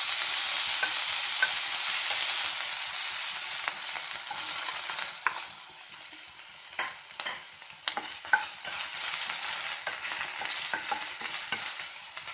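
Crushed ginger and garlic, with green chillies, sizzling in hot coconut oil in a ceramic-coated frying pan and stirred with a wooden spatula. The sizzle is loudest for the first few seconds and then quieter, with scattered taps and scrapes of the spatula on the pan.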